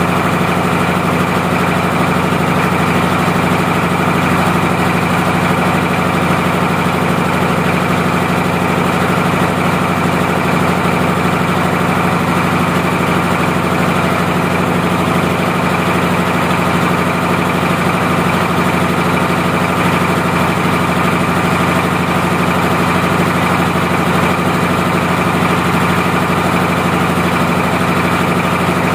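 Single-cylinder horizontal diesel engine of a generator set running steadily at idle while it warms up.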